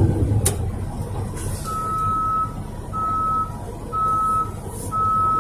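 Dump truck's reversing alarm beeping, one steady high beep about every second, starting about a second and a half in. Under it the truck's diesel engine runs with a low rumble that is loudest at the start and eases off. A single sharp click sounds about half a second in.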